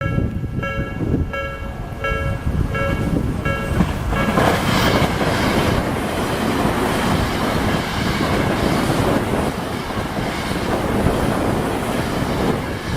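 Japanese railway level crossing alarm ringing its electronic bell at about two strokes a second; from about four seconds in a train passes through the crossing, its loud running noise drowning the bell until it eases off near the end.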